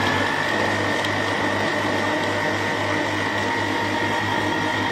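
Countertop blender with a glass jar running steadily, blending gram flour and water into a thin batter: a steady high whine over a low motor hum.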